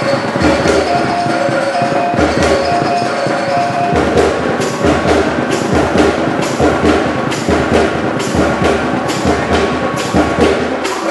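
Percussion music of drums and gongs playing a steady beat. Ringing gong tones are held through the first few seconds, then the strokes come thicker and faster.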